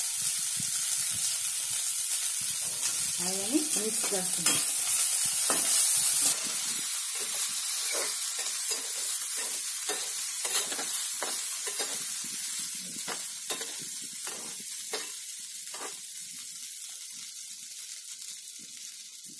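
Stuffed okra with gram-flour masala sizzling in oil in a metal pan, stirred with a run of quick scraping clicks against the pan through the middle of the stretch. The sizzle eases a little near the end.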